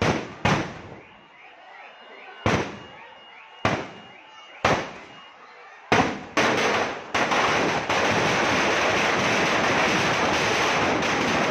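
Firecrackers packed inside a burning Ravan effigy going off in sharp, loud separate bangs, about seven in the first seven seconds, then merging into a continuous dense crackling barrage from about eight seconds in as the effigy goes up in flames.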